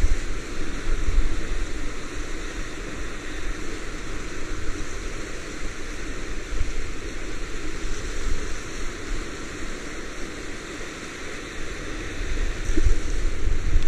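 Whitewater rapid rushing and breaking around a paddleboard: a loud, steady rushing noise with a low rumble that swells near the end.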